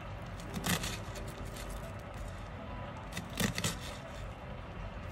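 Chef's knife chopping a red onion on a bamboo cutting board: a quick run of knife taps against the board a little under a second in, and another at about three and a half seconds.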